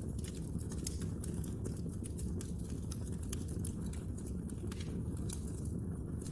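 Wood logs burning in a fireplace, crackling and popping with many small irregular snaps over a steady low rumble of the fire.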